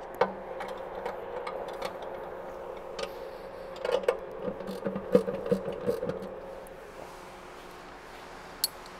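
Ratchet wrench and spanner clicking and clinking on the bolts of a belt scraper as the bolts are slackened off, in scattered ticks with a short cluster around the middle. A steady hum runs underneath and eases off near the end.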